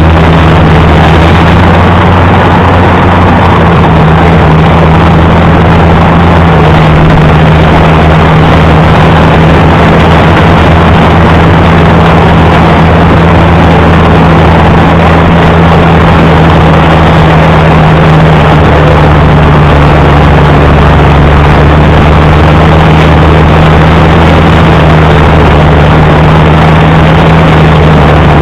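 Allis-Chalmers D19 tractor engine running loud at a steady speed.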